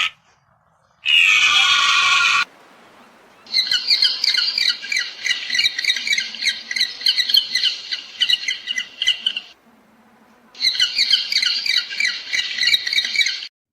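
An animal's high-pitched squawking calls: one drawn-out call about a second in, then a long run of rapid, repeated squawks, a short pause, and another rapid run near the end.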